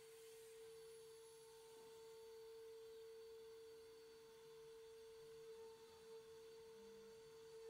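Faint, steady high whine of a 3.5 kW CNC router spindle running as it carves MDF with a V-bit: one even tone that holds without change.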